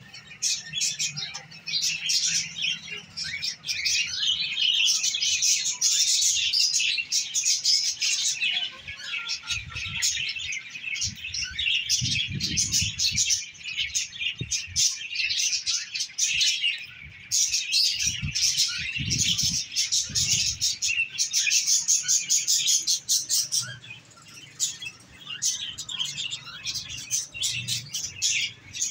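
A flock of small cage birds in an aviary chirping and chattering continuously, many high-pitched calls overlapping. A few low rumbles come about a third and two-thirds of the way through.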